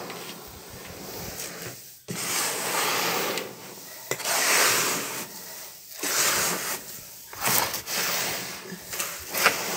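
Dry chicken feed, a mix of cracked grain and soy meal, being stirred by gloved hands in a plastic tub. It makes a run of hissing, rustling swishes as the grain shifts and slides, several long strokes from about two seconds in.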